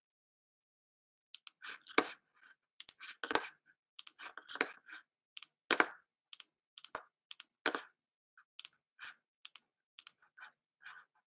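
Quiet, irregular clicking of a computer keyboard and mouse: a birth date being typed in, in short clusters of taps, starting about a second in.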